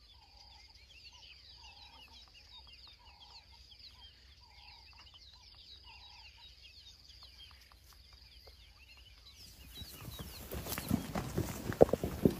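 Quiet bush ambience: many short high bird chirps over a steady high insect tone, with a low call repeated about five times early on. About ten seconds in, louder, rough sounds with sharp knocks set in.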